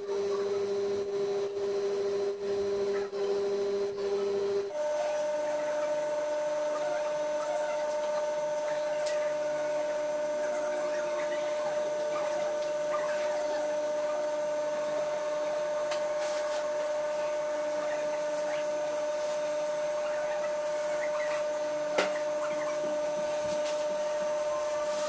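Steady machine hum made of constant tones over a faint hiss. Its pitch changes abruptly about five seconds in, then holds steady. Faint ticks and rustling are scattered through it, with one sharp click near the end.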